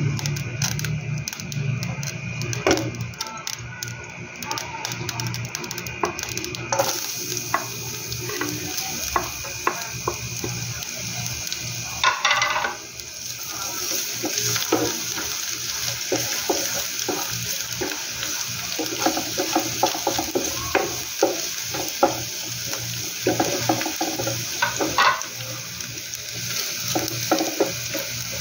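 Chopped garlic frying in hot oil in a pan, a steady sizzle with a louder burst of sizzling about twelve seconds in. A wooden spatula stirs it, scraping and knocking against the pan many times.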